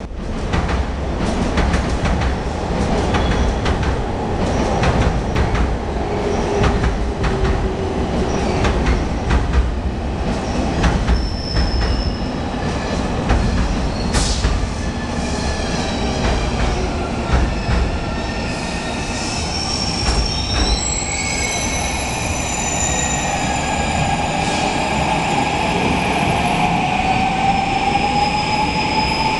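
JR Kyushu 821 series electric train starting off from a station platform. A steady low rumble with scattered knocks gives way, in the last several seconds, to the motors' whine rising steadily in pitch as the train accelerates.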